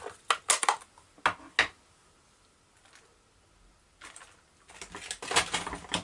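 Sharp clicks and knocks of craft tools being handled and set down on a tabletop, a couple of seconds of quiet, then more clicking and rustling near the end.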